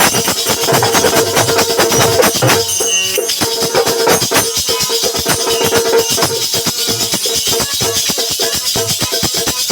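Bundeli folk percussion (dholak and nagadiya drums with jhinka and manjira) playing a fast, dense rhythm of rattling and jingling strokes, with a short break in the drumming about three seconds in.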